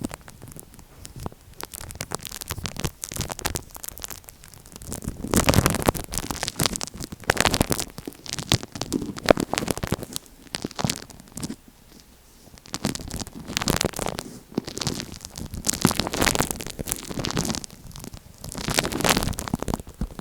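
Scratching, crackling and clicking from tape stuck over an Apple EarPods microphone as it is rubbed and poked right on the mic. The sound comes in louder bursts of a few seconds, with quieter stretches between.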